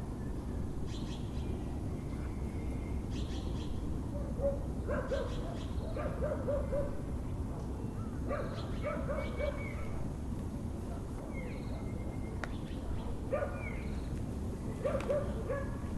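Birds calling over a steady low background hum: short chirps, brief whistled notes, and clusters of quick repeated low calls, mixed with dog barking.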